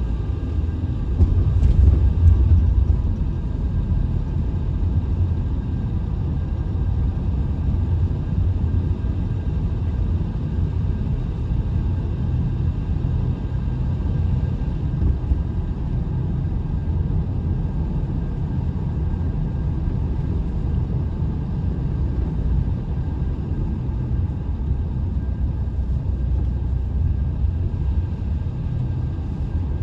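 Steady low rumble of a vehicle driving, a little louder for a couple of seconds near the start.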